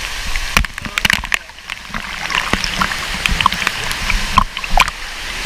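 Water splashing and sloshing close to the microphone, with scattered short clicks and knocks throughout.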